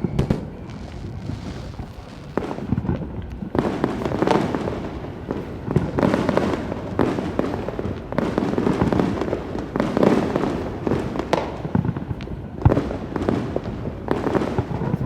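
Aerial fireworks going off continuously, with sharp bangs at irregular intervals over a constant crackle and rumble.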